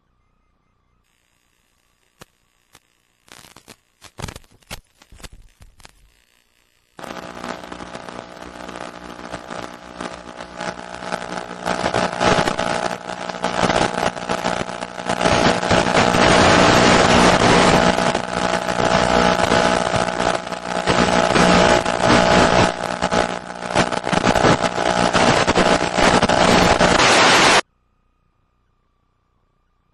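In-flight audio from a first-person-view model aircraft's onboard link: first scattered crackles of radio static, then the aircraft's motor and propeller droning under a loud rushing noise. The noise grows louder, holds, and cuts off suddenly near the end.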